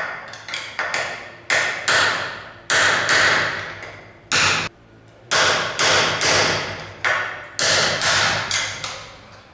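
Hammer blows on metal knocking the outer bearing race out of a pit bike's steering head tube: about fifteen sharp, ringing strikes, some in quick pairs, with a short pause about halfway through.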